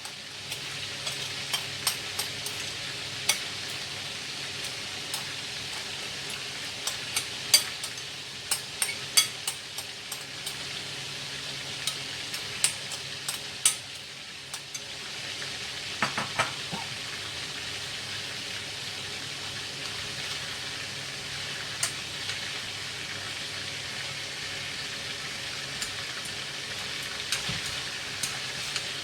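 Duck pieces frying in hot oil, a steady sizzle with scattered sharp clicks and pops, thickest in the first half and again about halfway through.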